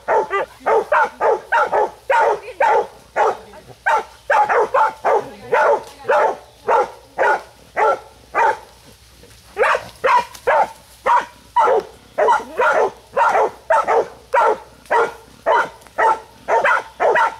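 Young hog dogs baying a wild hog: a steady run of sharp barks, about two a second, with a brief pause about halfway through.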